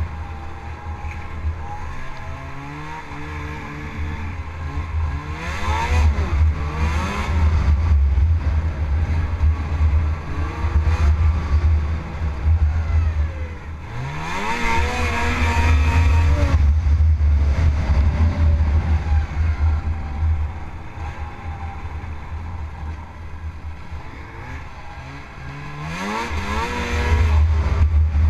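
Snowmobile engine running under way, rising in pitch three times as the throttle is opened, about five, fourteen and twenty-six seconds in, and easing back between, over a heavy low rumble.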